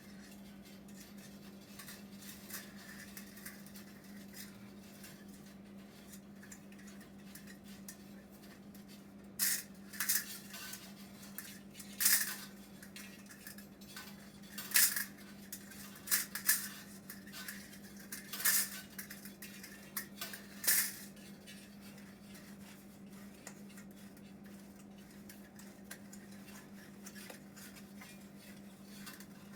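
Metal parts or tools clinking and clattering in short bursts, about eight times over roughly ten seconds starting near the middle, over a steady low hum.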